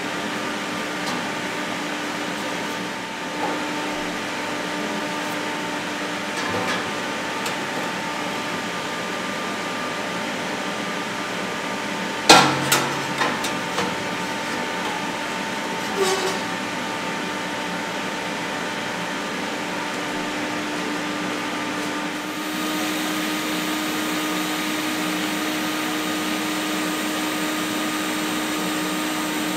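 Steady workshop machine hum, with a short cluster of sharp metal knocks a little before halfway and one more a few seconds later as the 2.5 mm 316 stainless steel sheet parts of the intake box are handled on the steel welding table. In the last seconds the hum changes and a steady high hiss joins it as a TIG welding arc burns.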